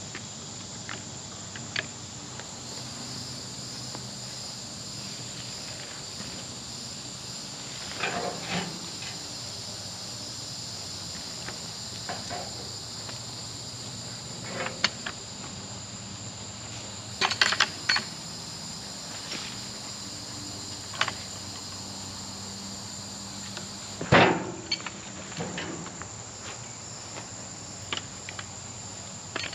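Steady high insect chorus, a thin continuous buzz, with scattered knocks and clatters every few seconds, loudest about 24 seconds in.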